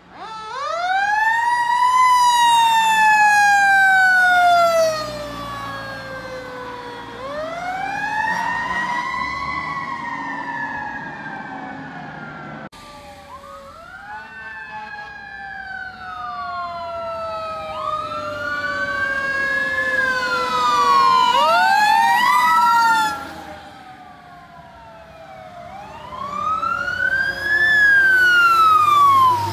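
Emergency vehicle sirens wailing. First a single siren rises quickly and falls away slowly, twice. Then, from about halfway, the sirens of a fire engine and a tanker overlap, their wails crossing, with the loudest rise near the end.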